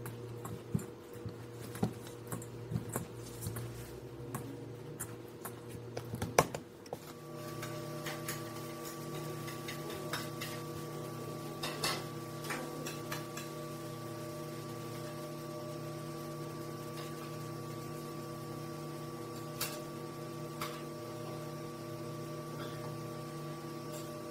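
Hands kneading dough in a stainless steel bowl: soft slaps and light taps over a steady hum, with one sharp knock about six seconds in. After about seven seconds a different steady hum takes over, with only occasional light clicks.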